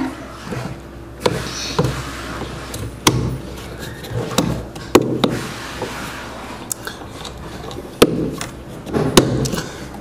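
Plastic clicks and knocks of a washing machine's drain valve cap and plunger being handled and pushed back into the valve housing, refitted after its rubber seal was cleaned. The clicks come irregularly, about ten in all, the loudest about eight seconds in, over a low steady hum.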